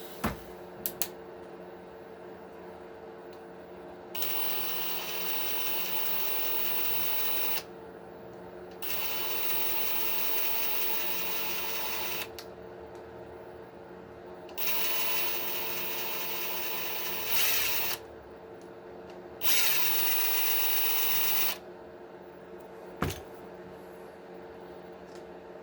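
Small handheld power driver running in four bursts of about three seconds each, with short clicks before and after, as the plastic axle housing is taken apart. The third burst gets louder near its end.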